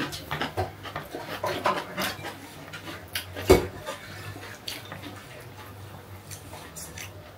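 Small dinner-table noises: soft clicks and mouth sounds over a low hum, with one sharp thump about three and a half seconds in.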